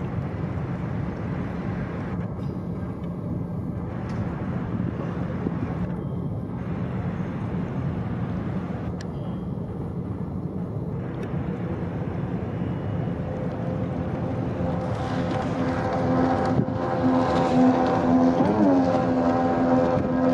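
Engines of passing work boats: a steady low rumble that grows louder about two-thirds of the way in as a pitched hum comes up, the hum wavering briefly near the end.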